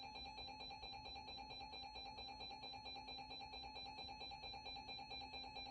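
Electronic alert tone: a buzzy beep pulsing rapidly and evenly, several times a second, at a steady pitch.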